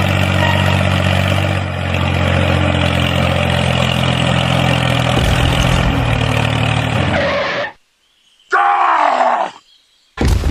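A tractor engine running steadily, cutting off abruptly about three-quarters of the way in. After a short silence comes a single animal-like groaning call of about a second that falls in pitch.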